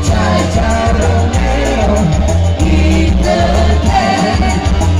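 Live band music through a PA system, with several singers singing together into microphones over a strong, steady bass.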